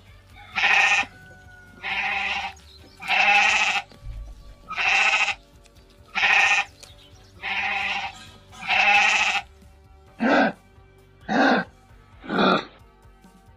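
A series of animal calls over background music: seven drawn-out calls about every second and a half, then three shorter, quicker ones near the end.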